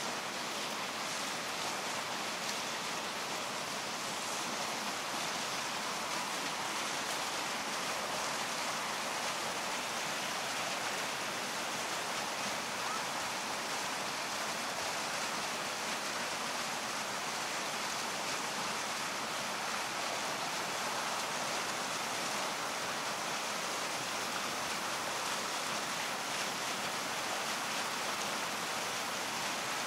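Iwatani-Primus P-153 gas canister stove burning with a steady hiss under a pot of water that is close to the boil.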